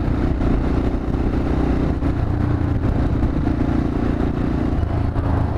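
Yamaha XT 600E single-cylinder four-stroke engine running steadily while the motorcycle cruises along the highway, with road and wind noise mixed in.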